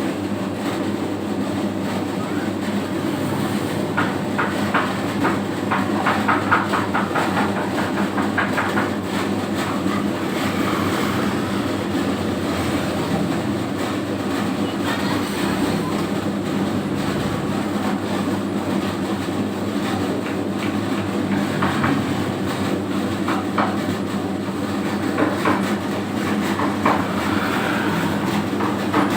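Homemade 3 kg donut dough mixer running: a steady motor hum with spells of rapid rattling clatter that come and go.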